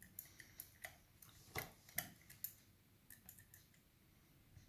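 Faint, irregular small metallic clicks and ticks of a pick and tension tool working the levers inside an Asec BS 5-lever mortice lock, with two slightly louder clicks about a second and a half in.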